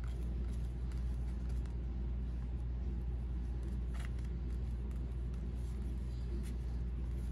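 Steady low background hum, with a few faint light clicks of trading cards being handled, the clearest about four seconds in.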